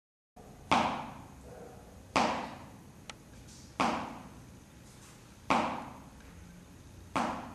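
Five sharp knocks, evenly spaced about every second and a half, each ringing out briefly, with one faint tick between the second and third.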